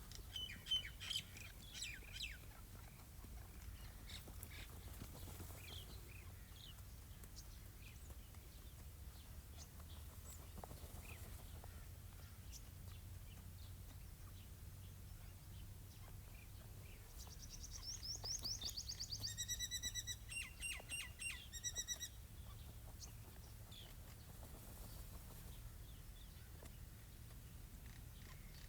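Young partridge (teetar francolin) calling: a few short high chirps at the start, then after a long pause a fast trill of high notes that turns into a quick string of repeated, evenly spaced piping notes lasting about five seconds. A low steady rumble runs underneath.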